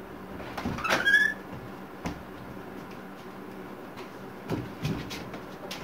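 A wooden door squeaking as it is opened, one short rising squeal about a second in, followed by a few light knocks.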